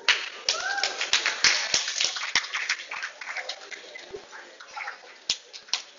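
Students in a lecture hall clapping and cheering with some whoops: thick, irregular applause that thins to scattered claps in the second half.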